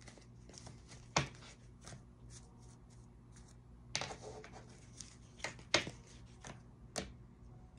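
Tarot cards being handled and laid out: about six short, sharp snaps and taps, spaced irregularly, over quiet room tone.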